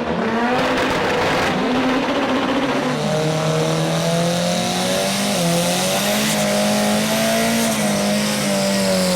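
Drag-racing vehicle's engine held at high revs for several seconds, its pitch nearly steady with a few small dips.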